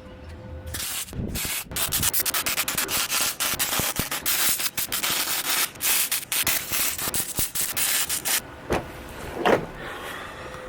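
Electric arc welder running a weld bead on steel: a steady crackling sizzle that starts under a second in and cuts off after about eight seconds. A couple of short knocks follow near the end.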